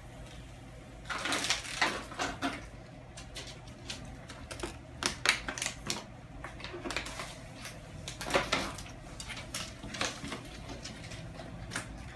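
Puppies scampering on a whelping pad: irregular clicks, taps and rustles from their paws and claws, with louder clusters about a second in, around the middle and again about two-thirds through.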